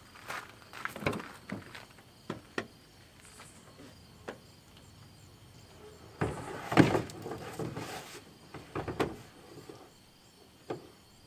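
Footsteps on gravel, then knocks and scraping about six to eight seconds in as a plastic kayak is handled on a pickup truck's rack and the truck's rear door.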